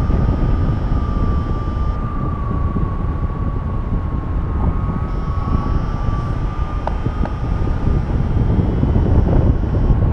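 Airflow buffeting the microphone during paraglider flight, a dense low rumble, with a steady high tone that wavers slightly in pitch and two faint clicks about seven seconds in.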